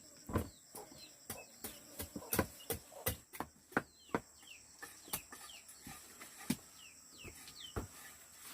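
Chickens or chicks giving short falling peeps, over irregular sharp knocks about two a second.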